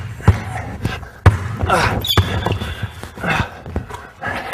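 Basketball dribbled hard on a hardwood gym floor, bouncing at an uneven pace with the hall echoing. A sneaker squeaks on the court about two seconds in.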